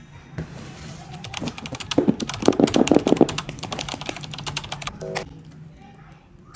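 Rapid computer-keyboard typing clicks, running for about four seconds, followed by a brief short tone near the end.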